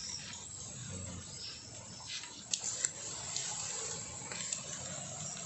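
Wood fire burning under a clay cooking pot: a steady hiss, with a few sharp crackles a little past halfway.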